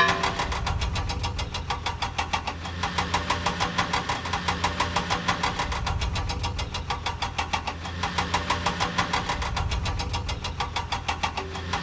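Cartoon engine sound effect of a toy vehicle running: a steady, rapid, even putter over a low hum.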